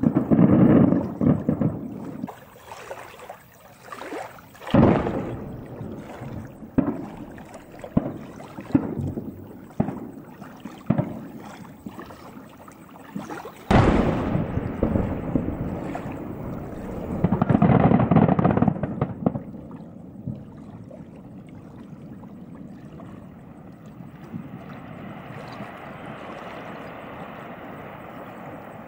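Distant fireworks: a rapid series of sharp booms echoing and rumbling, then a sudden very loud boom about halfway through that rolls on for several seconds and swells again, the burst of a very large three-shaku shell. It dies down to a steady background hiss near the end.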